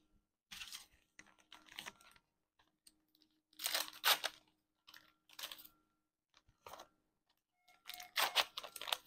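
Packaging being torn open and crinkled by gloved hands, in several short rustling bursts.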